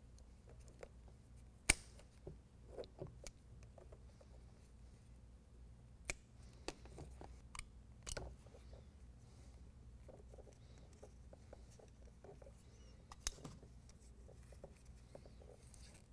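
Wire cutters snipping through a small wire with a sharp click about two seconds in, followed by a few quieter clicks and the faint rustle of wiring being handled.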